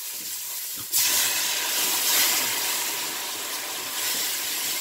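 Dry wine poured into a hot pot of frying sofrito: about a second in, a sudden loud hiss of sizzling and steam breaks out, then settles to a steady sizzle as the sauce is stirred.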